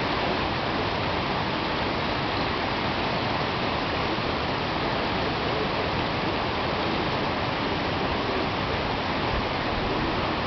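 A rocky stream of water rushing steadily over stones.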